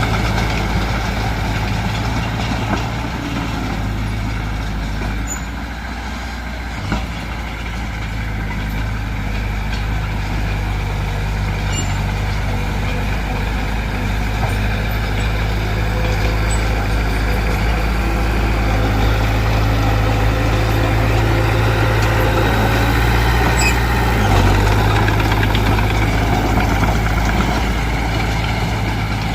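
Heavy diesel engine of earthmoving machinery running steadily, a continuous low drone whose note shifts briefly about 24 seconds in.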